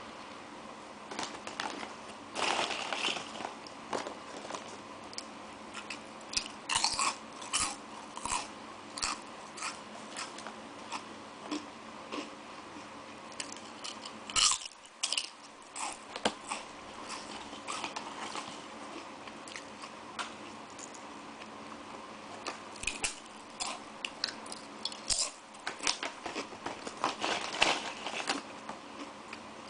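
Crunchy Tongari Corn horn-shaped corn snacks being bitten and chewed, a long run of short crisp crunches.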